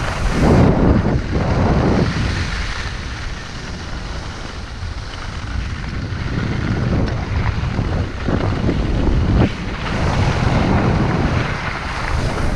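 Wind buffeting the microphone of a moving skier's camera, rising and falling in gusts, over the rush of skis sliding on packed snow.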